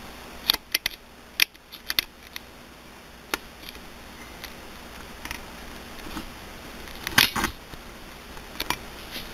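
Scattered light clicks and knocks from hands handling hard parts, with the loudest cluster about seven seconds in.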